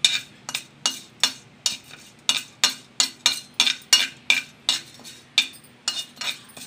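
Metal spoon scraping and clinking against a kadai while stirring split urad dal in hot oil, in regular strokes about three a second.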